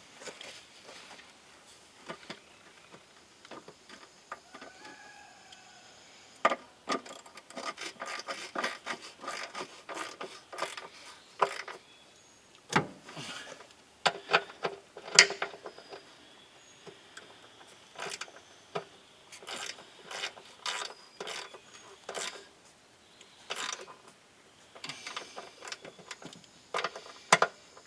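9/16 wrench working the drive-chain tensioner bolt of a Bobcat 610 loader, drawing it up snug: runs of quick metal clicks and clinks, with sharper knocks now and then.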